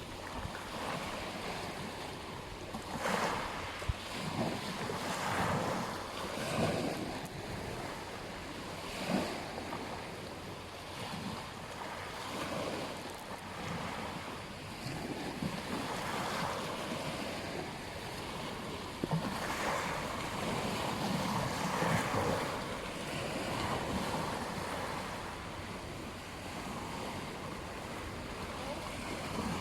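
Ocean waves washing onto a beach, a steady surf hiss that swells and falls every few seconds. Some wind rumble on the microphone.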